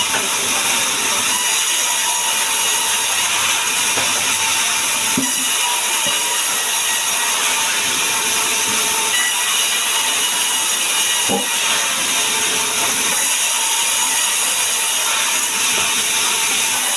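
Power saw cutting sengon wood, a steady high-pitched rasping noise that does not let up, with a few faint knocks.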